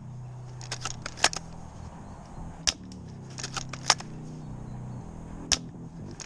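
Airsoft fire: sharp snapping cracks, some single and some in quick clusters of three to five, every second or two.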